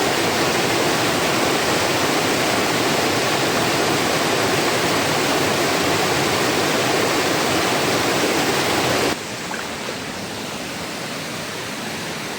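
Rushing river water pouring over rocks, a steady loud rush. About nine seconds in it cuts abruptly to a quieter flow of the same water.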